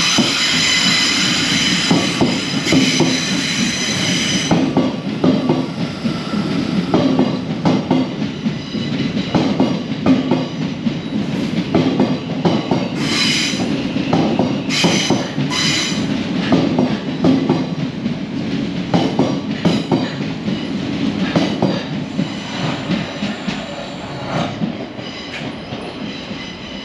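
Passenger train moving through the station, its wheels clicking over rail joints. A high wheel squeal runs for the first few seconds and comes back in short bursts about halfway through. The sound fades a little toward the end.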